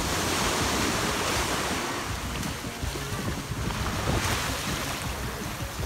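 Small surf waves breaking and washing up over the sand, with wind rumbling on the microphone.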